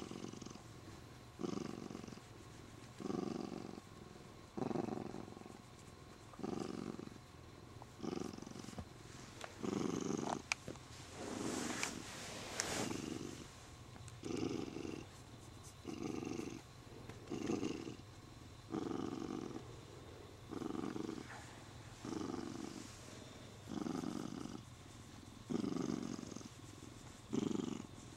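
Siamese cat purring while being stroked, swelling louder on each breath about every second and a half. A click and a brief rustle come near the middle.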